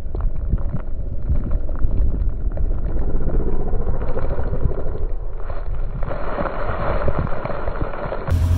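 Polaris RZR 900 S side-by-side driving and sliding through snow, its engine heard under heavy, rumbling wind buffeting on the microphone. Near the end the sound cuts to a steadier engine hum.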